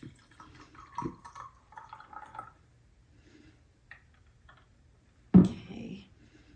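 Blended elecampane-root liquid being strained into a jar, faintly trickling and dripping, with a single thump about five seconds in.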